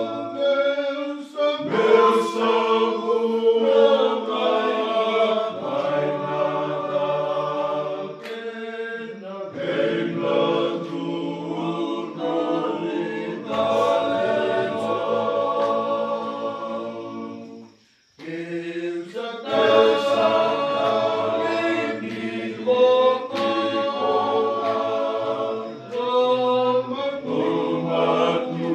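Group of men singing together unaccompanied, in several-part harmony. The singing comes in long held phrases with short breaks, and stops briefly about two-thirds of the way through before starting again.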